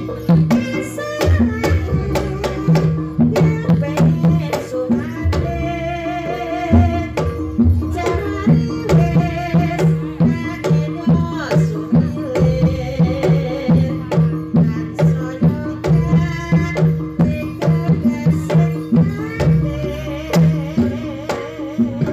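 Javanese jaranan (kuda lumping) ensemble playing live: kendang hand drums beat a steady driving pattern under held gamelan tones, with a wavering melody line above.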